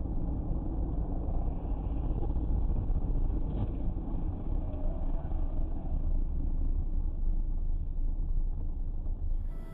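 Steady low rumble of a moving vehicle's engine and road noise, heard from inside the vehicle through its dashcam. It drops off abruptly near the end.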